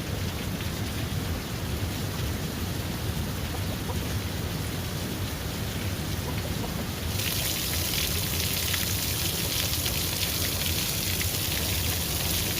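Steady rain falling, with a low rumble underneath. About halfway through, the rain's hiss turns louder and brighter, with a dense patter.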